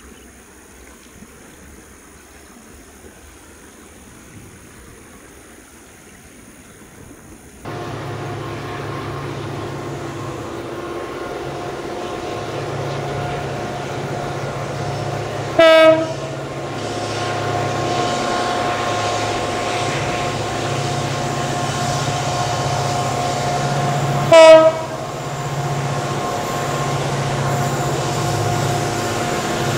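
Faint outdoor ambience with a thin steady high whine. About a quarter of the way in, the engine drone of an approaching CC 205 diesel-electric locomotive hauling a Babaranjang coal train starts and slowly grows louder. The locomotive's horn gives two short blasts, the loudest sounds, about halfway through and again near the end.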